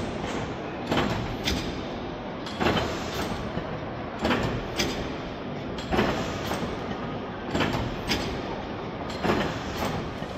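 1903 Burnley Iron Works cross-compound Corliss-valve mill engine running slowly, with sharp clacks in pairs from its valve gear about once every one and a half seconds over a steady mechanical background.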